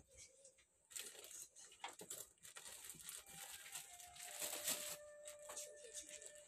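Cloth and a bag being handled: irregular soft rustling and crinkling, starting about a second in. A faint steady tone comes in about four seconds in.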